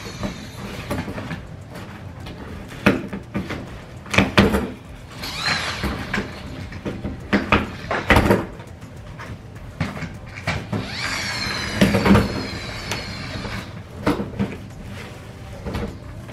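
A tall cardboard shipping box being opened by hand: the flaps scrape, creak and knock against each other, with irregular thumps. There are two longer squeaking scrapes, about five and eleven seconds in.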